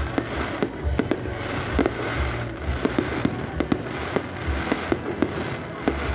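Fireworks going off in quick succession: many sharp bangs a fraction of a second apart over a continuous crackle, with deeper booms underneath.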